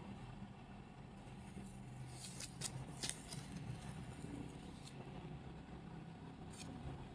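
Faint rustling and scratching of a kitten grabbing and batting a fabric flower on a shaggy rug, with a few short, sharp rustles about two to three seconds in, over a low steady room hum.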